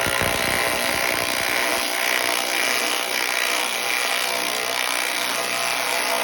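Two 12-volt cordless impact drivers, a Skil and a DeWalt, in high-speed mode, hammering lag bolts in at the same time. Their impact mechanisms make a continuous, rapid rattle that holds steady throughout.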